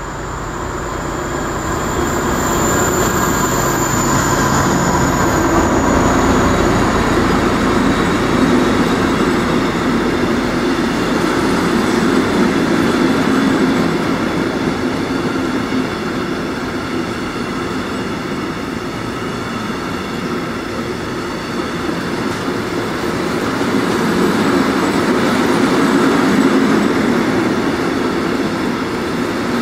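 A diesel locomotive passes at the head of a long freight train, then the train of container wagons rolls steadily past on the rails with a continuous rumble and clatter of wheels.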